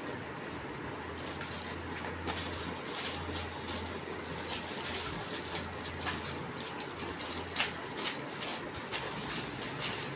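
Clear plastic packaging crinkling and rustling in the hands as a small accessory is unwrapped, in a run of sharp irregular crackles. A low steady hum sits underneath for the first two-thirds.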